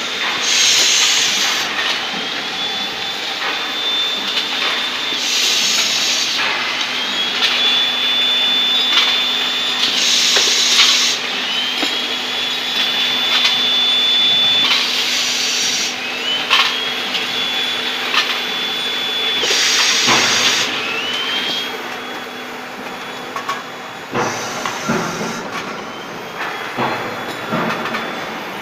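Bench drill-tapping machine at work in repeating cycles about every five seconds: a short burst of high hissing cutting noise, then a whine that rises in pitch and holds steady, over a steady motor hum.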